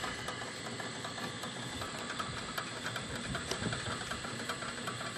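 Kite-line winch running steadily as the line pays out over its capstan, a steady mechanical noise with scattered faint ticks.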